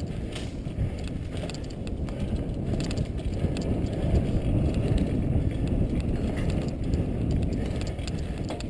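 Mountain bike riding over a dirt singletrack, picked up by a GoPro on the moving bike: a steady low rumble of tyres and wind on the microphone, with scattered rattling clicks from the bike over the bumps.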